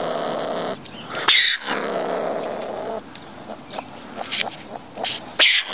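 Ring-tailed cat (Bassariscus astutus) calling: a sustained low call broken by two sudden, loud, shrill outbursts, about a second and a half in and near the end, with a few short calls between them.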